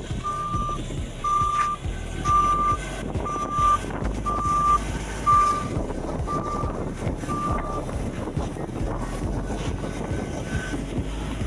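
Reversing alarm of a road-construction vehicle beeping about once a second, one steady tone, stopping about eight seconds in, over the low rumble of an engine.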